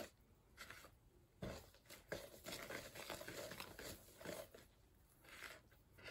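A spoon stirring thick brownie batter in a plastic mixing bowl: faint, irregular scraping with a soft knock about one and a half seconds in.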